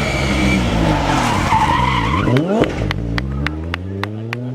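Rally car engine dropping in revs as it slows, a quick blip of the throttle about two and a half seconds in, then revving up steadily as it pulls away. A string of about seven sharp cracks comes while it accelerates.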